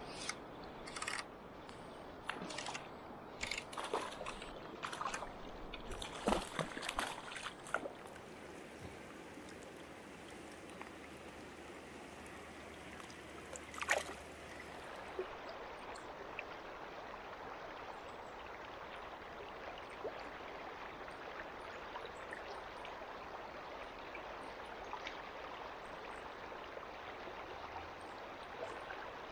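River water running and gurgling over stones in a shallow stretch of river. A series of short splashes or clicks comes in the first several seconds, and there is one sharper splash about halfway through.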